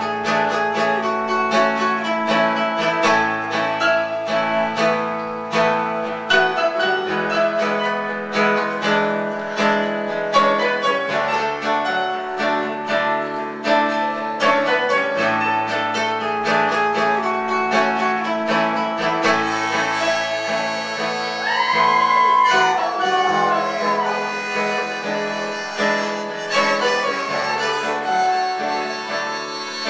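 Live instrumental music on acoustic guitar and keyboard over a steady, repeating bass line, with a harmonica playing sliding notes in the second half.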